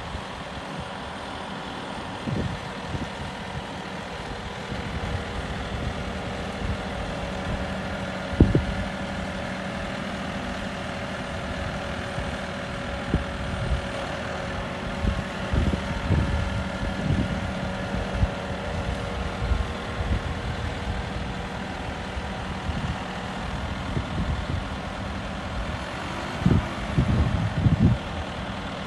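John Deere 6130R tractor's four-cylinder diesel engine idling steadily, with irregular low thumps over it.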